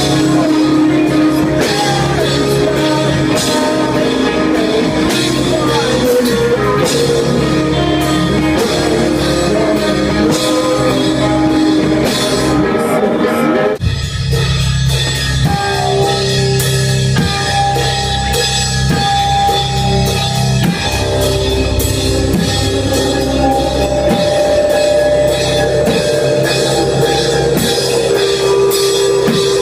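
A rock band playing live with drum kit and guitar. About halfway through the music shifts abruptly into a heavier section with a stronger, deeper low end.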